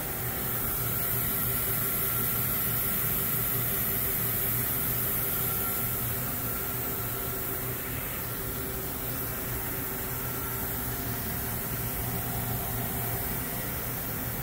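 Steady hum of running machine-shop machinery, with a few constant pitched tones and no impacts or cutting sounds.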